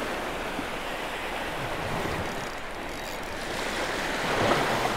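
Surf washing through the shallows, a steady rush of water that swells louder about four and a half seconds in.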